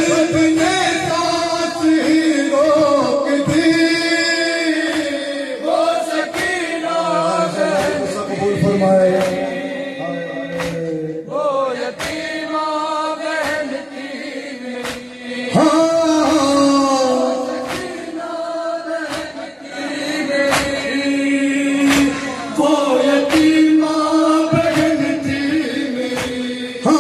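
Group of men chanting a noha, a Shia lament, in unison. Sharp slaps of hands on chests (matam) keep time, a little more than one a second.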